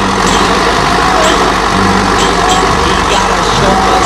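Diesel engine of a Mercedes-Benz off-road trial truck running steadily as the truck crawls across a steep side slope.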